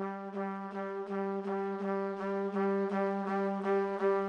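Intro music: one held low note with a bright, brassy tone, restruck about four times a second and slowly getting louder.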